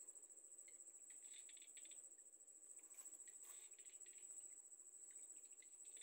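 Faint, steady high-pitched insect trill, like a cricket, with scattered soft ticks in small clusters.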